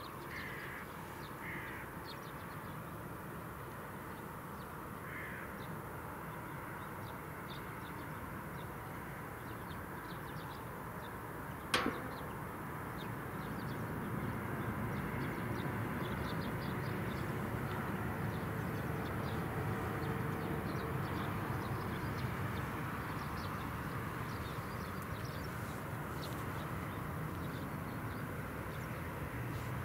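A few crow caws in the first seconds, then the distant IAE V2500 turbofans of an Airbus A319 spooling up for the takeoff roll: a low rumble that grows louder from about halfway. One sharp click just before the rumble rises.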